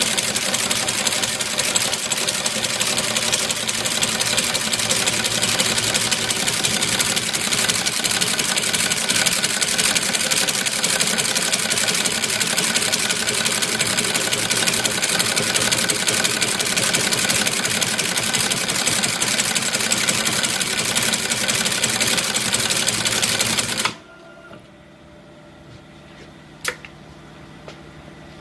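Two-axis brush tufting machine running, its tufting head driving bristle tufts into a wooden brush block in a fast, steady mechanical clatter. It stops abruptly about 24 seconds in, leaving a low hum and a few sharp clicks.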